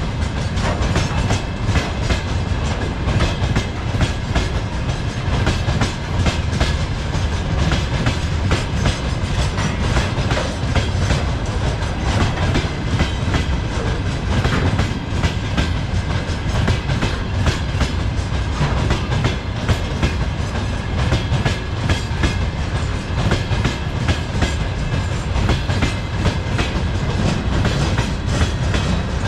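Freight train cars rolling past at steady speed, the wheels clicking rapidly and continuously over the rail joints with a low rumble underneath.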